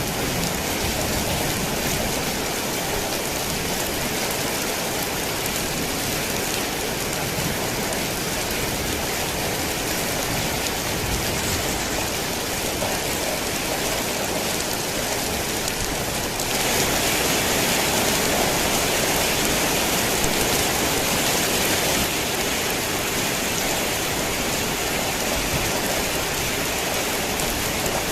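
Heavy rain falling on a tin roof, a dense steady hiss. About two-thirds of the way in it abruptly gets louder and brighter for several seconds, then settles back.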